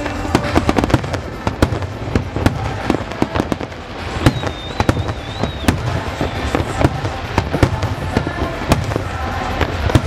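Fireworks display going off in a rapid barrage: many sharp bangs and crackles a second over a low rumble, with a high thin whistle about four seconds in.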